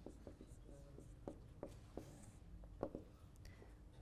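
Faint writing on a whiteboard with a marker: scattered light taps and a brief scratch about halfway through.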